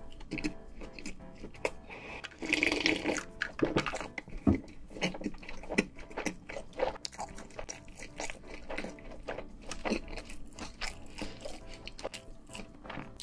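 Close-miked swallowing of cola from a glass, then wet chewing and mouth clicks from a bite of cheeseburger.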